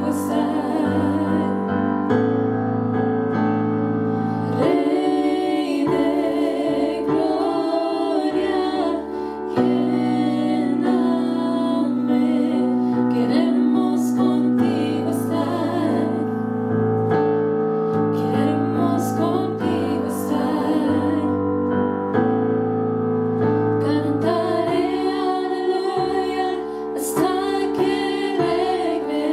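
Three women singing together through microphones, with a keyboard playing sustained chords beneath them.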